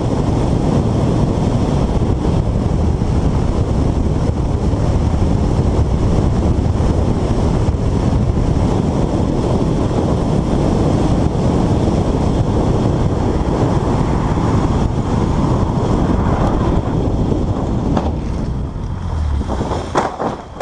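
Steady road and wind noise of a car driving at speed, picked up by a dashcam inside the car. A few short sharp clicks or knocks come near the end.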